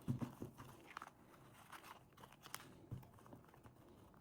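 Faint crinkling and rustling of small packaging bags being handled and opened, with a few light clicks and taps.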